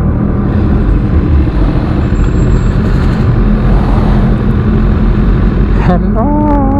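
BMW S1000RR sport motorcycle under way, its engine running steadily under a thick rush of wind noise.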